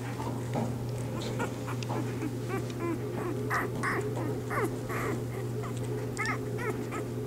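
Newborn Bernese Mountain Dog puppies squeaking: many short, high squeaks, scattered and in quick little runs, over a steady low hum.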